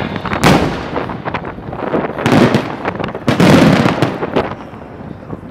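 Aerial fireworks shells bursting overhead with booming bangs and crackling. There is a sharp bang about half a second in, then heavier clusters of bursts around two seconds and three and a half seconds in, and the crackle thins out near the end.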